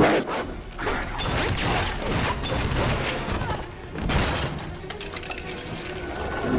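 Horror-action film sound mix: a zombie dog's snarl and a loud hit at the start, then a dense run of gunshots, crashes and thuds over a low rumble, with music.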